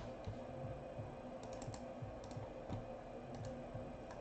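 Faint, scattered clicks of a computer keyboard and mouse, irregular and a few at a time, over a low steady room hum, as a list of names is copied and pasted into a spreadsheet.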